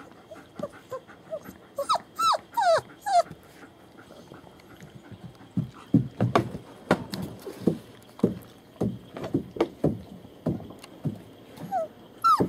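Three-week-old German Shepherd puppies whimpering: short, falling, high-pitched whines in the first few seconds. Then comes a run of short, lower sounds, and the whimpers start again, louder, near the end.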